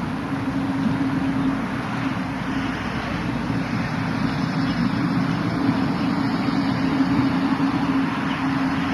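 Steady engine drone with a constant low hum over a wash of noise.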